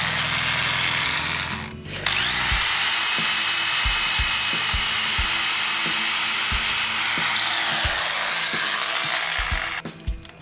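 Electric drill boring a hole into a wooden broomstick. It stops briefly about two seconds in, then spins up again with a rising whine and runs steadily until it stops near the end, followed by a few clicks as the chuck is handled.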